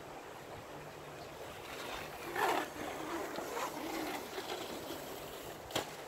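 Irregular rustling and crackling over a steady outdoor noise, loudest a couple of seconds in, with a single sharp click near the end.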